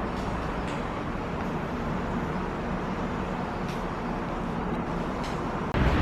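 Steady outdoor background noise: a low rumble with a hiss over it, of the kind distant road traffic makes. It breaks off abruptly just before the end.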